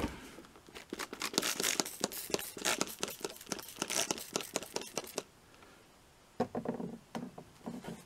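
Plastic shaker bottle of green ground foam being shaken and tapped, a quick run of small clicks and rattles for about four seconds, then a few softer knocks near the end.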